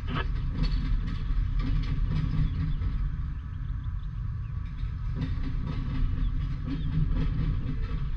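Freight train of boxcars rolling steadily past over a grade crossing. A continuous low rumble of wheels on rail is broken by irregular clicks and knocks from the wheels passing over rail joints.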